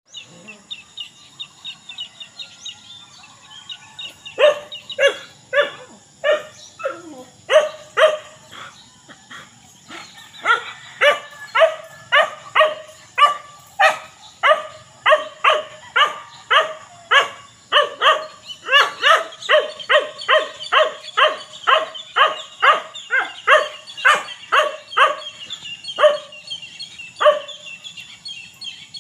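A dog barking over and over in short, sharp barks, starting about four seconds in and quickening to about two barks a second.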